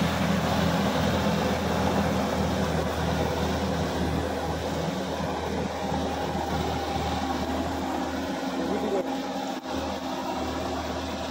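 Sonalika DI 50 RX Supreme tractor's diesel engine running steadily under load while it tills a flooded paddy field with a rotary tiller, growing fainter as it moves off.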